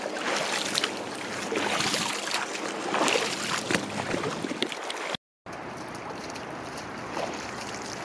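Feet wading through shallow seawater over sand, splashing and sloshing in irregular bursts. The sound cuts out briefly about five seconds in, then gives way to a steadier rush of shallow water.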